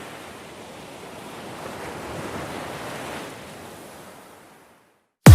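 Steady rush of a waterfall, an even hiss of falling water that swells slightly and then fades away near the end.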